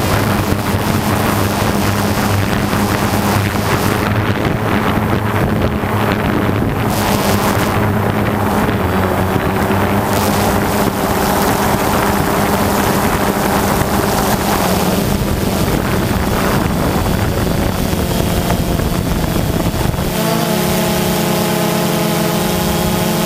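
Motor and propeller of a radio-controlled model aircraft running steadily in flight, heard from on board with wind rushing over the microphone; its note changes near the end.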